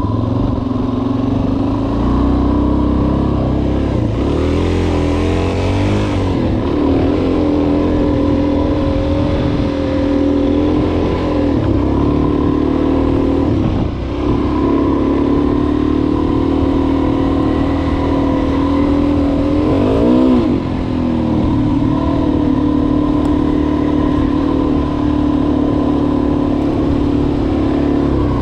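Suzuki DR-Z400S's single-cylinder four-stroke engine running as the bike is ridden, the revs rising and falling with the throttle. The engine note dips and climbs back up several times.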